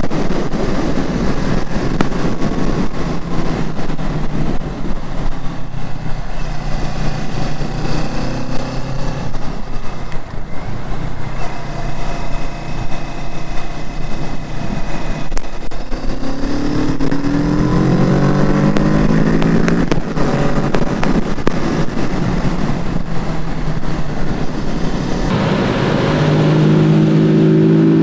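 Kawasaki Z650's parallel-twin engine under way with wind rushing past. About halfway through, the revs climb in a series of rising sweeps as it accelerates through the gears, and it pulls up through the revs again near the end.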